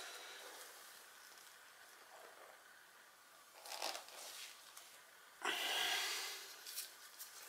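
Quiet handling of a homemade bicycle chain whip, a length of chain on a metal bar. There is a short scrape about halfway through, then a louder, sudden rustling clatter lasting under a second as it is moved on the wooden floor.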